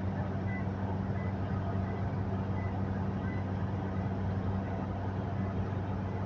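Cabin noise of a Toyota Hilux with its 2KD four-cylinder diesel running and the air conditioning on: a steady low drone under an even hiss.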